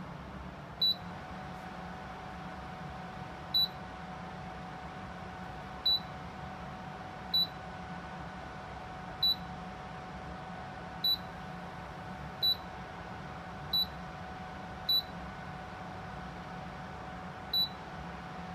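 Tower fan running with a steady whir and a faint hum, beeping about ten times at uneven intervals as its settings are stepped through. The hum rises slightly in pitch just after the first beep.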